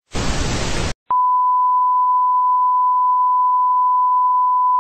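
Television static hiss for about a second, then after a brief gap a steady, unbroken test-tone beep at one pitch, the reference tone that goes with colour bars.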